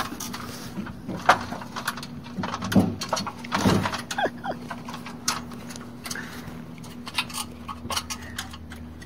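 A dog's claws and paws clicking and knocking on the rungs of a metal ladder as she climbs it, a scattering of sharp metallic taps. A steady low hum runs underneath.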